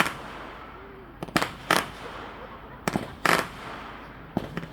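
Aerial firework shells bursting: a series of sharp bangs, some close together in pairs, about five over a few seconds.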